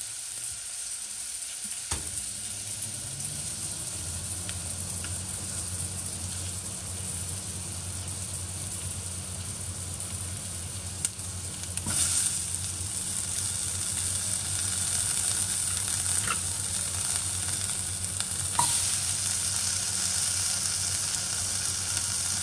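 Onions, curry leaves and chilli sizzling in hot oil in a pot. Chunks of brined young jackfruit are dropped in about halfway and again near the end, and each time the sizzle flares up and then stays louder. A low steady hum comes in about two seconds in.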